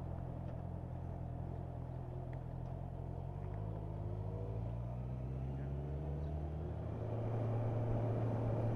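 Motorcycle engine pulling away through a left turn and accelerating, its note rising in steps as it goes up through the gears, and getting louder near the end.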